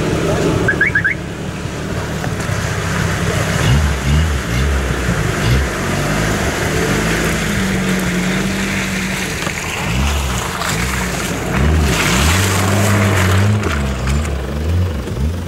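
Toyota Hilux pickup's engine running as it crawls through mud and drives close past, the revs rising and falling again and again. Other off-road vehicles' engines run behind it.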